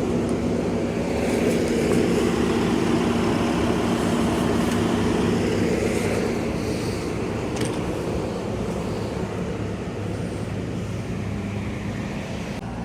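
Engine running steadily with a low, even hum, easing off a little in loudness over the second half.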